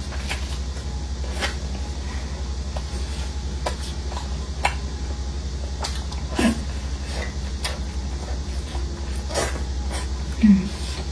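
Close-miked eating sounds: scattered sharp mouth clicks and chewing noises over a steady low hum, with a short, louder low sound near the end.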